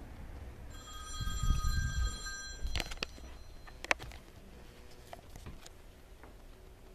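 An electronic ringing tone, a steady multi-pitched tone, sounds for about two seconds over some low thumps and then cuts off suddenly. It is followed by a few sharp clicks about a second apart.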